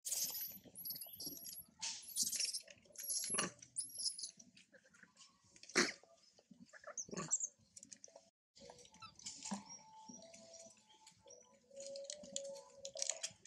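A series of short, very high chirps in the first few seconds, over scattered rustling and scuffing, with two sharp knocks around the middle.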